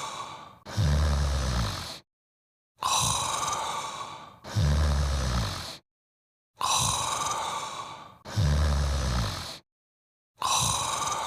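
Snoring in an even loop about every four seconds. Each cycle is a breathy, hissing breath followed straight away by a low snore, with a gap of dead silence before the next. Three full cycles are heard, and a fourth begins near the end.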